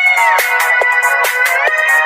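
Smartphone ringtone playing: an electronic synth melody with sliding notes over a steady beat of about two strikes a second.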